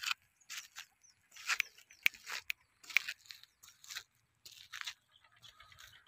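Footsteps crunching on a dirt track, a step about every half second, dying away about a second before the end.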